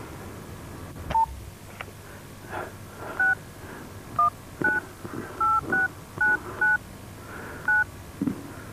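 Touch-tone telephone keypad being dialled: eight short two-tone key beeps at uneven intervals, with faint clicks of handling between them.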